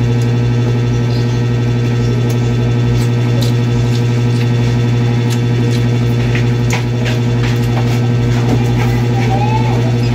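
Steady low mechanical hum of a running motor, with scattered light clicks and taps over it.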